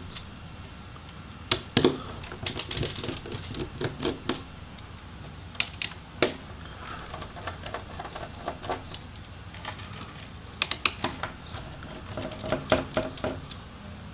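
Small screwdriver and tiny screws clicking and tapping as the screws holding a laptop LCD panel in its lid are taken out: scattered light clicks with a few quick runs of ticks.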